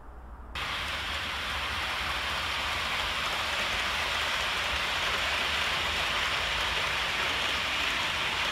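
OO gauge InterCity 125 model train running past at speed, its wheels rolling on the rails as a steady, even hiss that starts abruptly about half a second in.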